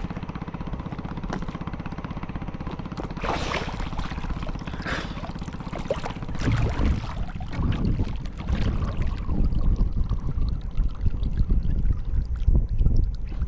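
Small fishing boat's engine running at idle, with water pouring and splashing for a few seconds about three seconds in. From about six seconds in, a louder, uneven low rumble takes over.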